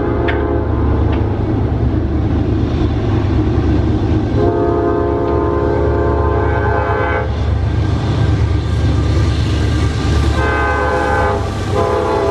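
A passing freight locomotive's air horn sounding a series of blasts for a grade crossing: one ending just as it starts, a long blast a few seconds in, then a shorter one and another beginning near the end, over the train's continuous deep rumble.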